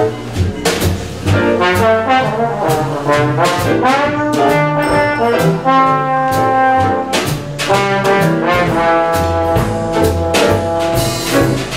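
Trombone soloing in a small jazz band, with held and sliding notes over piano, upright bass and drums keeping time with cymbal strokes.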